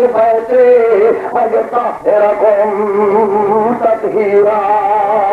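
A man's voice chanting verses in a long, wavering melodic line, amplified through a microphone, with a short breath break about two seconds in.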